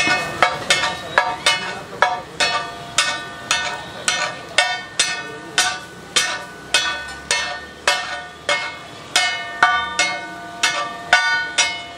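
Long flat metal spatula striking and scraping a large flat tava griddle while tossing rice. It makes ringing metallic clangs about twice a second.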